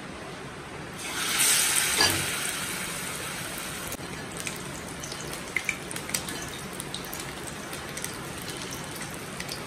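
Flour-and-egg-coated tilapia fillets sizzling as they go into hot oil in a stainless steel frying pan. A loud burst of sizzling comes about a second in, then it settles to a steady sizzle with scattered pops.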